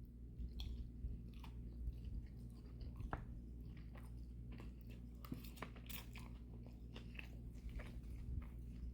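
A person chewing food close to the microphone, with scattered small crunches and mouth clicks over a steady low hum.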